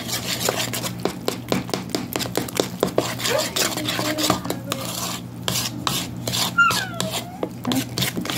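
A spoon stirring and scraping thick johnnycake batter around a mixing bowl in quick, repeated strokes, folding the flour into the wet ingredients.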